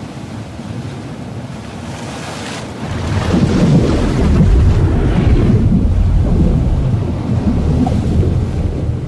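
Ocean ambience: a wash of water noise that swells into a louder, deep rumbling surge about three seconds in.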